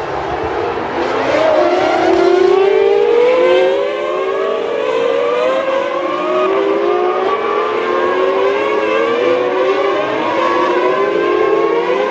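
Several 1998 Formula One cars' engines at high revs, overlapping. Each engine's pitch keeps climbing and dropping back at upshifts as the cars accelerate through the gears.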